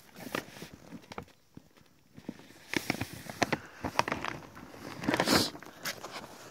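Stiff plastic sack of dry cat food being handled, crinkling and crackling in irregular bursts, with the loudest rustle about five seconds in.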